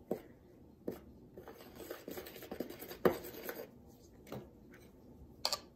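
A utensil and fingers scraping and rubbing through dry flour in a plastic mixing bowl, making a well in the dry ingredients, with a few light knocks against the bowl, the sharpest about three seconds in.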